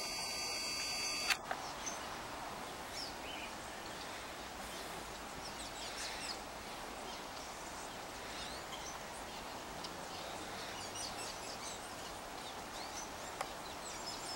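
Steady outdoor background hiss with many short, high bird chirps scattered throughout. In the first second or so a brief buzz ends with a click.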